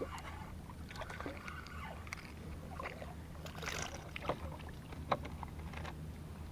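Water sloshing and splashing, with one louder splash a little past halfway and a few sharp clicks and knocks, over a steady low hum.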